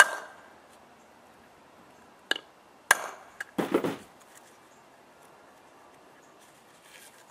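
Sharp knocks of a metal 1/4-inch drive extension against the plywood board, used as a firm base for setting a snap fastener. There is a loud knock at the start, two more between two and three seconds in, and a short rougher clatter near four seconds.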